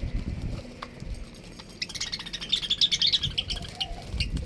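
Budgerigars chattering at their feed bowl, with a quick run of high chirps starting about two seconds in; the birds are squabbling over the food.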